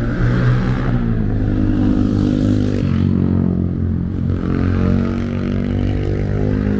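Road traffic: a motor vehicle's engine running close by, with a steady note that shifts about three seconds in.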